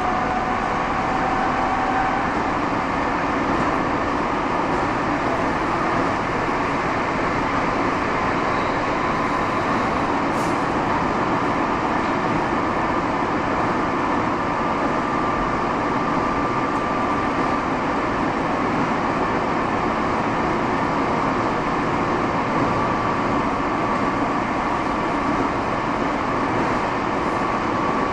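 Steady running noise of a Nagoya Municipal Subway Tsurumai Line train heard inside the car, with a faint high tone coming and going.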